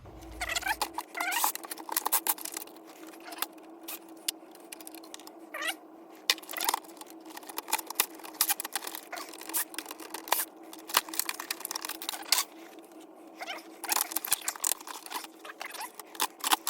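Clicks, knocks and clatter of plastic and metal parts being handled and pried apart while an electronic typewriter is dismantled. Several short squeaks come through, and a faint steady hum sits underneath.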